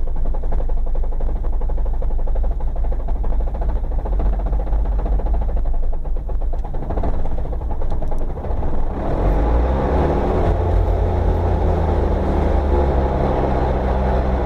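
Inside a 1985 Ford Belina with a broken gearbox, rolling downhill in first gear: a steady low engine and drivetrain drone. About nine seconds in it grows louder and noisier as the car is let pick up speed.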